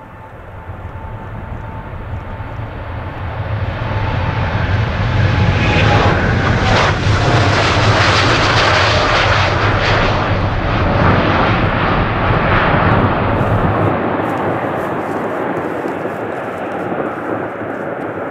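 Boeing 787-10's GE GEnx turbofans at takeoff thrust as the airliner rolls, lifts off and climbs past. The jet noise swells over the first few seconds, is loudest around the middle, then slowly fades as it climbs away, with a faint whine in the first half that sinks slightly in pitch.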